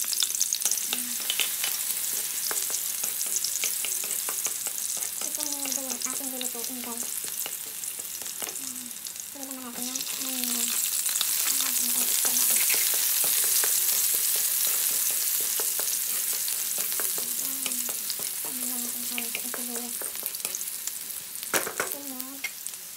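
Minced garlic and chopped onions sizzling and crackling in hot oil in a metal pan, with frequent small oil pops. The sizzle grows louder about ten seconds in, when the onions go into the oil.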